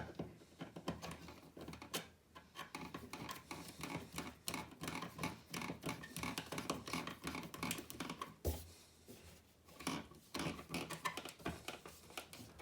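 Faceplate screws of a double socket being tightened by hand into a plasterboard box: a dense run of small scratchy clicks and ticks, with one sharper knock about eight and a half seconds in.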